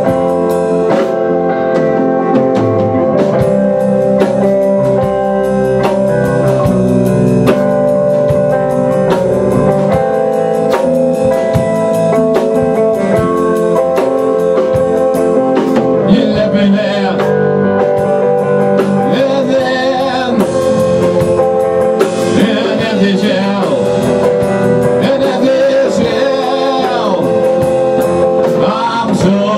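Rock band playing live: drum kit, a distorted electric guitar and an electric bass, with held notes over a steady drum beat.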